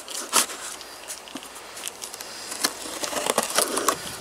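Packing tape on a cardboard box being slit open with a blade: scratching and rustling of tape and cardboard, with a few sharp clicks, busiest near the end.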